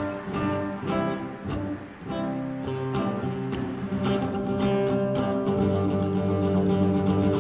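Background music on acoustic guitar: separate struck chords with short gaps, then from about three seconds in a fuller, steadier passage with held low notes.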